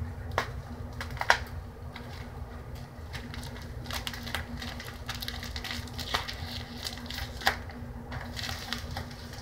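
Crinkling and scattered sharp clicks of a mail package being unwrapped by hand, its plastic and bubble-wrap packing handled, with a steady low hum underneath.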